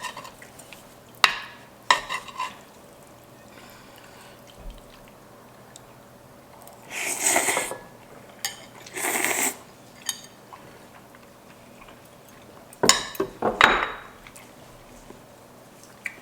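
Eating utensils clinking against dishes, with two longer noisy slurps of ramen noodles and broth near the middle.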